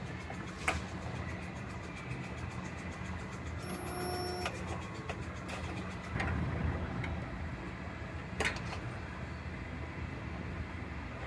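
Resistance spot welder's squeeze gun welding a car's frame rail seam: a steady low hum, with sharp cracks about a second in and again near nine seconds, and a short beep around four seconds.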